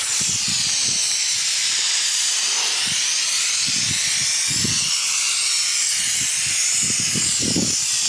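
Aerosol can of tire-shine spray hissing in one long, steady spray as a tire is coated.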